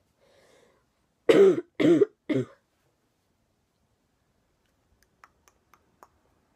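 A sick girl coughing three times in quick succession, about half a second apart, followed by a few faint ticks.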